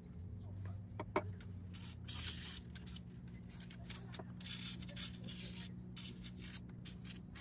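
Aerosol can of PB Blaster penetrating oil hissing in several short bursts as it is sprayed onto the carburetor's springs and throttle linkage, to free them so they move freely.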